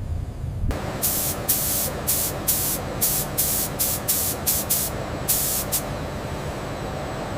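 Short bursts of spraying hiss, about a dozen in five seconds and irregularly spaced, over a steady machine hum that starts under a second in.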